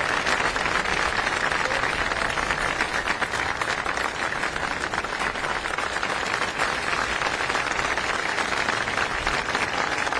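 Crowd applauding steadily, many hands clapping together.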